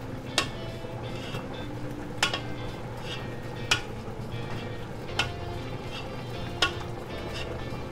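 Metal ladle stirring in a pot of broth and noodles, clinking sharply against the pot about every second and a half: five clear knocks, with lighter taps between.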